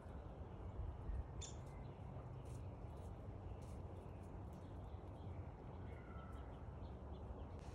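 A few faint, scattered songbird chirps, one sharp high note about a second and a half in and a couple of softer ones near the end, over a steady low background rumble.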